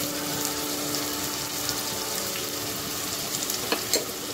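Sliced onions and ginger-garlic paste frying in hot oil in an aluminium pot: a steady sizzle with small crackling pops. Two sharper clicks come near the end.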